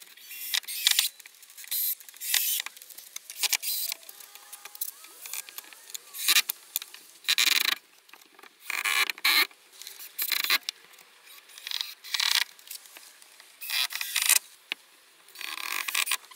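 Cordless drill-driver driving screws into softwood timber framing in a string of short bursts, about a dozen in all. Quieter scraping and handling noise comes between the bursts.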